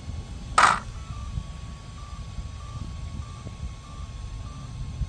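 RC car electronics powering up: one short, loud beep, then a faint steady tone with a brief higher pip about every 0.6 seconds.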